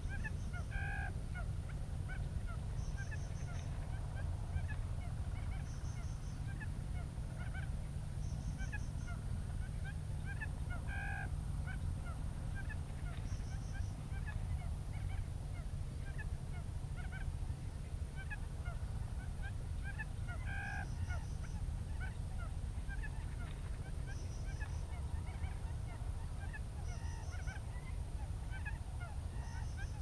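Quail calls from a lure speaker, repeating every few seconds: a short call about every ten seconds and quick high three- or four-note pulses in between. A steady low rumble runs underneath.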